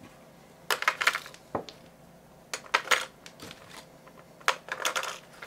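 AA batteries clicking and knocking as they are handled and pushed into a Sony DSC-H300 bridge camera's plastic battery compartment: a handful of short, sharp clicks spread irregularly through the few seconds.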